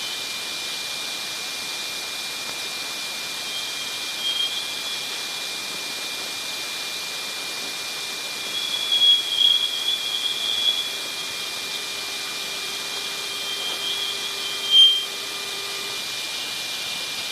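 Jupiter's electron cyclotron emissions as recorded by Voyager's plasma wave instrument and played back as audio: a steady hiss with a thin, unchanging high tone running through it. Above the tone a band of brighter hiss swells and fades several times, in a cluster a little past halfway and in one short, louder swell near the end.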